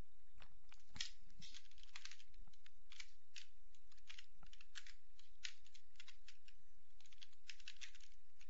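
Typing on a computer keyboard: an irregular run of key clicks over a faint steady hum.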